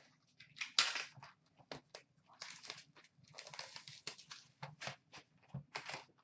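Card-box cardboard and pack wrappers being handled and torn open, a run of short crinkling, tearing rustles.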